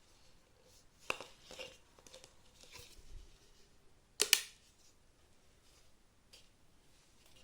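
A few light clicks and rustles of small parts being handled, then a sharper double click about four seconds in.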